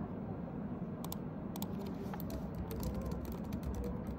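Typing on a computer keyboard: quick, irregular key clicks start about a second in and keep going, over a steady low background hum.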